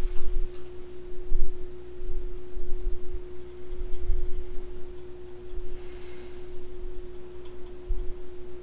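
A steady single-pitched hum runs throughout, with irregular low bumps and a short rustle about six seconds in.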